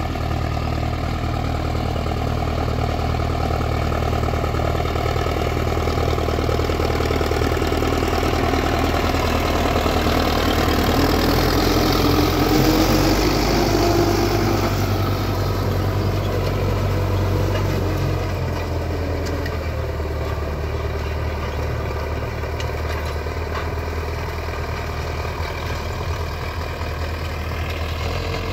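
MTZ-50 tractor's four-cylinder diesel engine running steadily under load while pulling an 18-disc harrow through dry soil. It grows loudest around the middle, with the scrape of the discs cutting the ground added as they pass close by.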